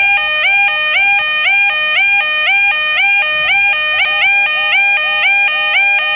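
Level crossing warning alarm sounding an alternating two-tone signal, repeating about twice a second, each note sliding up slightly as it starts. This warns that a train is approaching and the crossing is closed.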